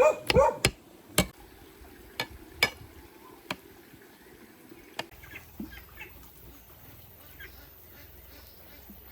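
A few loud honking calls from domestic waterfowl, then a series of sharp single knocks, and fainter short calls near the end.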